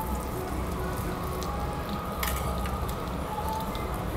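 Pork sizzling and crackling on a tabletop barbecue grill plate, a steady hiss with one sharp click a little over two seconds in.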